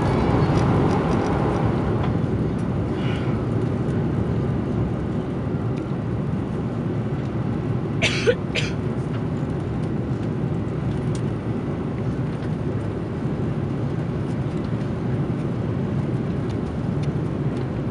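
Steady cabin noise of an Airbus A330-200 climbing after takeoff: jet engines and airflow heard through the fuselage, easing slightly over the first few seconds. A brief scratchy noise sounds twice about eight seconds in.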